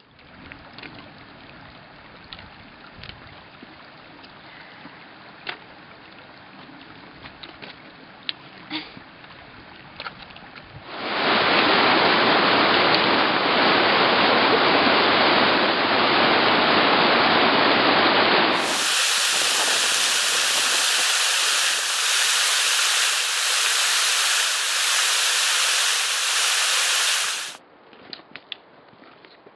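Mountain creek rushing over rocks, a loud steady water noise that starts about a third of the way in. A second loud rushing noise of a different character follows and cuts off suddenly shortly before the end. Before the water, only quiet outdoor sound with scattered light clicks.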